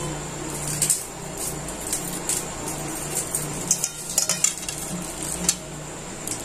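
A hand mixing wet, marinated mushroom pieces in a metal bowl, giving scattered clinks and knocks against the bowl with a quick cluster of them about four seconds in.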